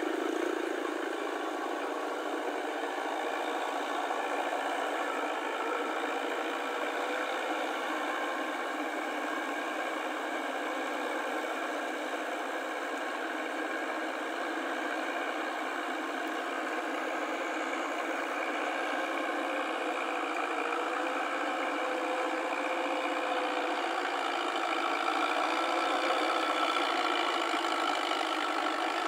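Tractor engine running steadily as the tracked tractor pulls a rotary tiller through a wet paddy field, getting a little louder near the end.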